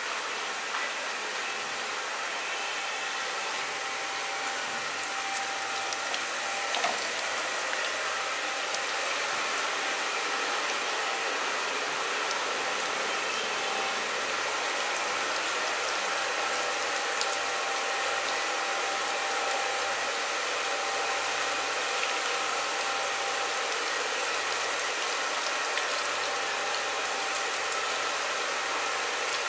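Handheld shower sprayer running water over a person's hair into a salon shampoo basin, a steady hiss and spatter of water, with the odd small tick.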